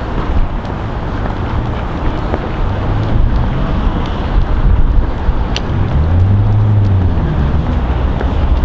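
Wind buffeting the microphone as a loud, steady low rumble, with a passing vehicle's engine note rising and falling about six seconds in.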